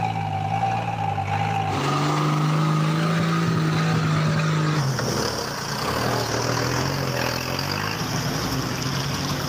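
A motor vehicle engine running steadily, its tone shifting about two seconds in and again about five seconds in.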